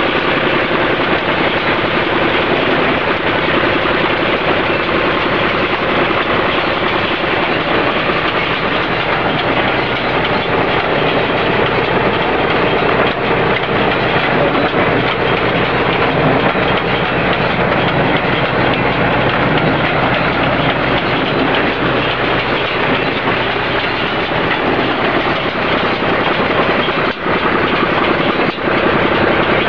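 Welger WSA 350 small square baler at work baling hay behind a running tractor: a loud, steady mechanical clatter of the pick-up and baling mechanism over the tractor engine's drone.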